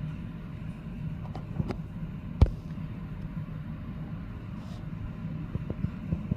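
A steady low hum with scattered light clicks and taps, one sharper knock about two and a half seconds in and more taps near the end.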